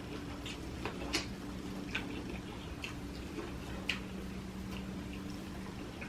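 Close-miked eating sounds: wet chewing and lip smacking, heard as irregular soft clicks over a steady low hum.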